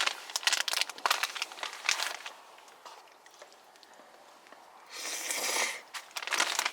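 Plastic food packaging crinkling and crackling, with a short tearing rip about five seconds in and more crinkling near the end.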